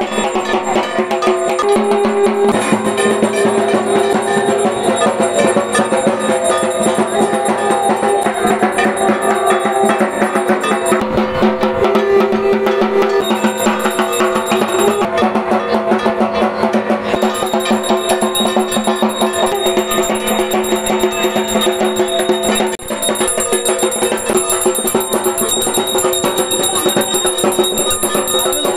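Music led by fast, steady drumming and percussion, with sustained pitched tones under it.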